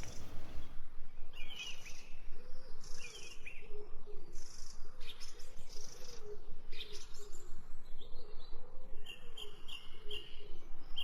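Birds chirping in short curling calls about every second or so, with a lower wavering call running underneath.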